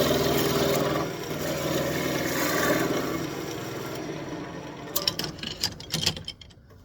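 Wood lathe spinning a dense elm spoon blank while a turning tool cuts into it, a steady buzzy scraping that fades away after about four seconds. A few sharp clicks and knocks follow about five seconds in, and then it falls quiet.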